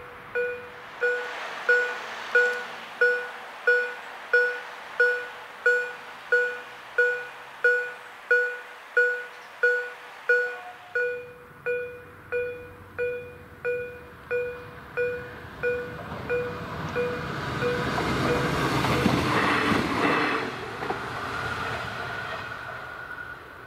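Electronic level-crossing bell (DEPK-08) striking about three times every two seconds, each ring dying away, until it stops about two-thirds of the way through. Meanwhile a train's rumble builds from about halfway in, is loudest near the end, then fades.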